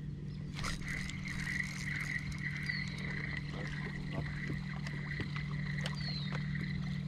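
Spinning reel being cranked steadily, its gears giving an even whir, as a hooked smallmouth bass is reeled in. It runs over a steady low hum from the boat's electric trolling motor. The whir starts a little under a second in and stops just before the end.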